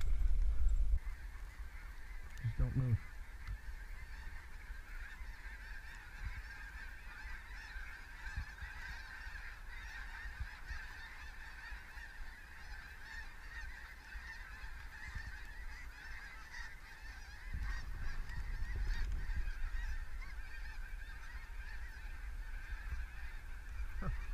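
A large flock of geese honking overhead in a continuous, dense chorus of many overlapping calls.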